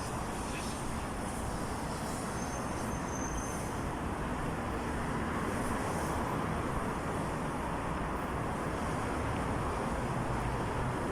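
Steady road traffic noise: a continuous rumble and hiss of vehicles, a little louder in the second half.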